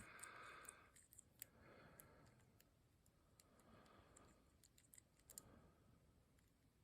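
Faint, scattered clicks from the number wheels of a three-wheel combination padlock being turned by hand, some close together and some a second or more apart.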